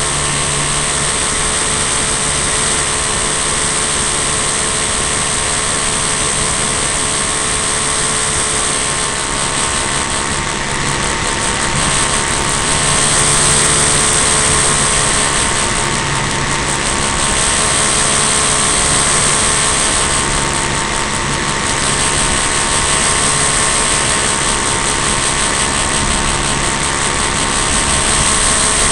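The engine and propeller of a radio-controlled Piper model plane running steadily in flight, heard close up from a camera mounted on the airframe, with a strong rush of air over it. It grows somewhat louder about halfway through and again near the end.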